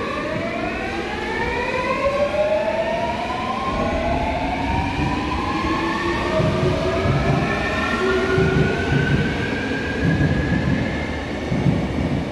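Seoul Subway Line 8 electric train accelerating away from the platform. Its traction inverter whines in several tones that climb steadily in pitch, over a low rumble that grows after a few seconds.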